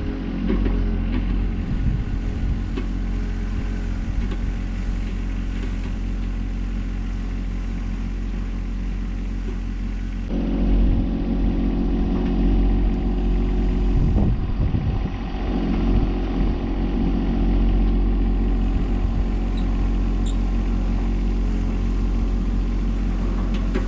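Tractor engine running steadily while pulling a tillage implement to cut rows in the field, getting louder about ten seconds in.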